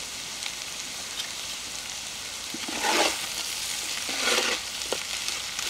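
Crab stir-fry sizzling in a blackened iron kadai while a metal spatula stirs and turns it, with two louder scraping strokes about three and four and a half seconds in.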